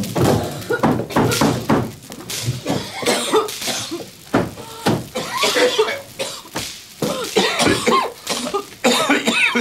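People coughing and gasping again and again in short irregular fits, choking on smoke.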